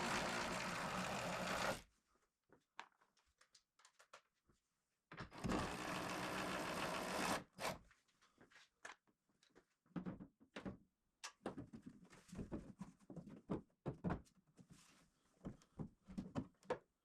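A power tool running in two bursts of about two seconds each as it spins out the hood hinge bolts, followed by scattered light clicks and knocks of bolts and tools being handled.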